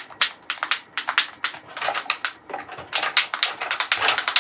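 Quick, irregular clicking and rattling of small hard objects being handled and shaken, busiest near the end.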